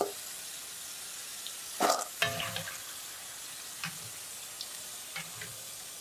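Hot oil faintly sizzling as double-fried potato strips drain, with a clatter of a kitchen utensil against the pan about two seconds in and a few light clinks and ticks after.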